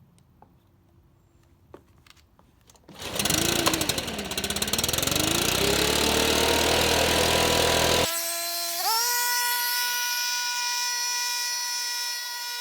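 Stihl BR600 backpack leaf blower engine starting about three seconds in after a few clicks, its pitch climbing as it revs. Near the middle it changes abruptly, then revs up once more to a steady high-pitched whine and holds there. This is the test run after the new air filter, fuel filters and spark plug went in, with the engine keeping high revs.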